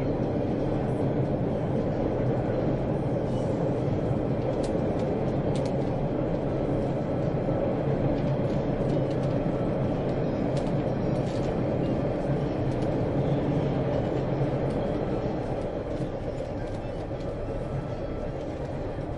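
Steady rumble of a moving passenger train heard from inside the carriage: wheels on the rails and running gear, with a few faint clicks and rattles. The level eases slightly near the end.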